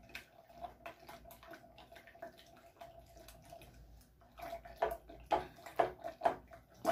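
Silicone spatula stirring hot water and lemon gelatin powder in a measuring jug, dissolving the gelatin: liquid sloshing while the spatula scrapes and knocks against the jug. The strokes grow louder about four seconds in, coming about twice a second.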